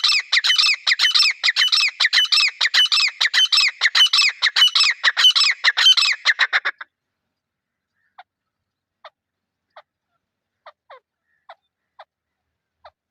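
Francolin (teetar) calling: a loud, rapid series of harsh repeated notes, several a second, that breaks off about seven seconds in, followed by faint single notes about a second apart.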